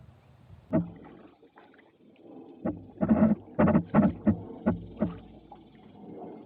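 Kayak and paddle knocking and scraping, one sharp knock near the start and then a close run of loud hollow knocks in the middle, as the boat works past an obstacle in shallow water.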